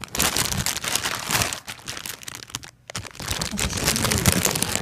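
Clear plastic bag crinkling as a plush keyring is handled and pulled out of it, a dense rustle that breaks off briefly near the middle.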